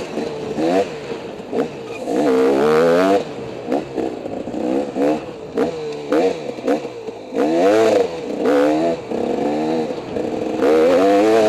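Dirt bike engine revving up and falling back over and over as the rider works the throttle along a twisty trail, with scattered knocks and clatter from the bike over rough ground.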